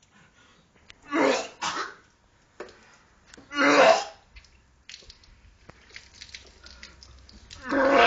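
A man retching and coughing up water after drinking a large amount of it, in three loud heaves: a double one about a second in, one near four seconds and one at the end.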